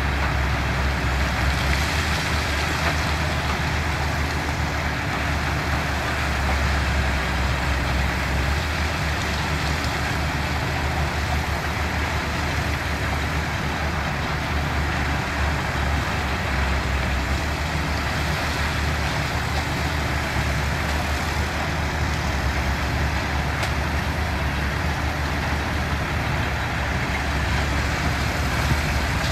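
Heavy construction machinery running steadily, a continuous deep engine drone with mechanical noise over it and no distinct starts or stops.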